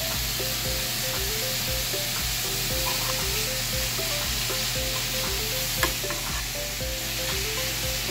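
Cubed tuna sizzling as it fries in a pan, stirred with a metal spoon, with one sharp knock about six seconds in. Soft background music with a simple melody plays underneath.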